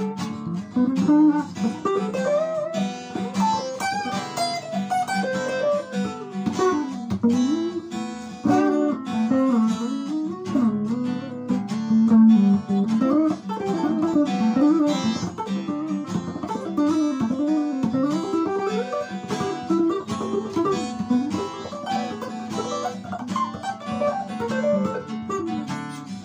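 Stratocaster-style electric guitar played through an amplifier in a continuous improvised lead: runs of single notes that slide and bend up and down over steadier lower notes.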